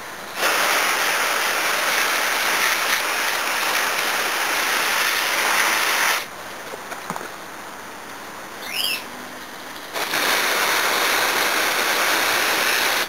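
Hose spray nozzle jetting water onto a small chiller's finned condenser coil, a loud steady hiss in two bursts: about six seconds, then a pause of about four seconds, then again near the end.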